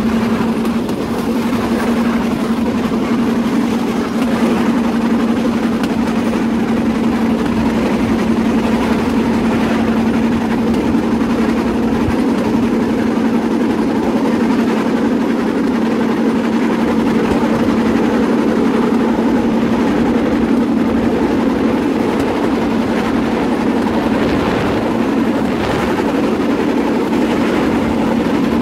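Bamboo train (norry) running steadily along the rails: a continuous loud rattle and clatter of its wheels on the track, under a constant low hum.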